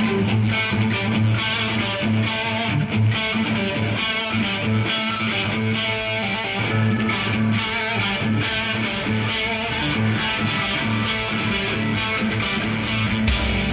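Live hard rock band playing: an electric guitar riff over bass and drums.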